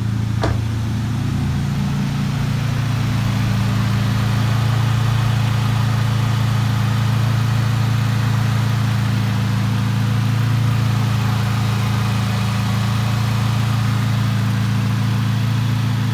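2013 Chevrolet Spark's four-cylinder petrol engine idling steadily on new spark plugs, after a misfire fault has been fixed. A single short click about half a second in.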